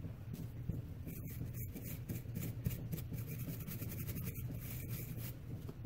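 Cleaning brush scrubbing the cylinder of an H&R Model 922 .22 revolver in quick back-and-forth scratchy strokes, starting about a second in and stopping shortly before the end. A steady low hum runs underneath.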